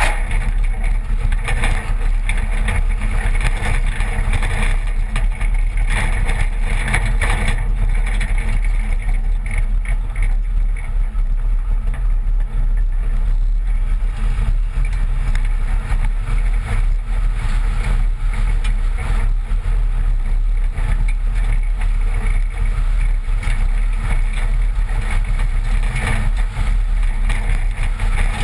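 1986 Toyota pickup driving along a gravel dirt track, heard from a camera on the outside of the body by the front wheel: a steady low rumble of wind and road noise, with tyres crackling over gravel.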